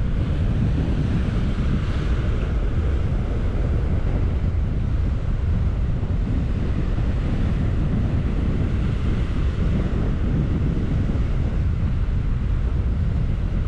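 Wind buffeting the microphone over surf washing against the rocks: a steady low rumble, with a brief brighter hiss about two seconds in.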